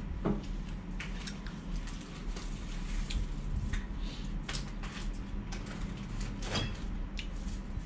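Handling noises at a table: scattered light clicks, knocks and rustles of food packaging and utensils, over a steady low hum.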